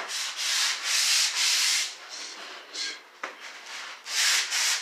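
Drywall joint compound being sanded by hand in a series of scratchy back-and-forth strokes, the final touch-up sanding before paint. A few long strokes come in the first two seconds, then two short ones, a lull, and the strokes resume near the end.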